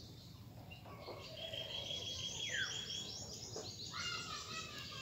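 High chirping animal calls: a fast, even chattering trill from about a second and a half in until near the end, and one note sliding downward about halfway through.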